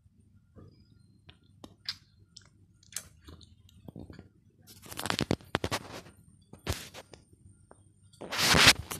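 Close crackles, clicks and rubbing from a hand handling the phone near its microphone, with a louder rustle near the end.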